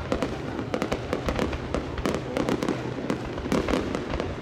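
Aerial fireworks shells bursting in quick, irregular succession: a dense run of sharp bangs and crackles, several a second.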